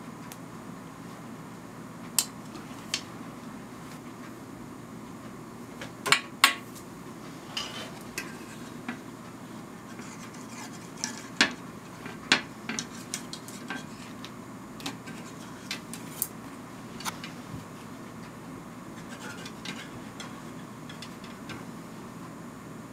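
Scattered, irregular sharp clicks and light knocks as a curved bamboo tenter stretcher and the wooden frame are handled to hold dyeing fabric taut, over a steady low hum. The loudest are a quick pair about six seconds in.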